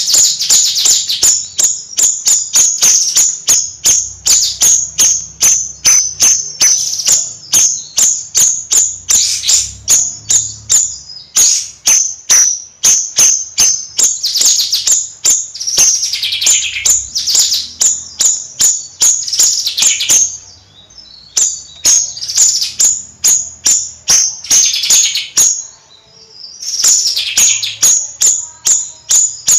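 Bayeman songbird singing a rapid, high-pitched chattering song: a long run of sharp chirps, several a second, with now and then a quick falling note. The run breaks off briefly twice before picking up again.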